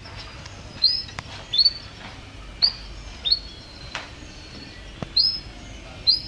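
Domestic canary giving short high chirps, about six of them spaced roughly a second apart, each rising sharply and then holding briefly, with a few faint clicks between.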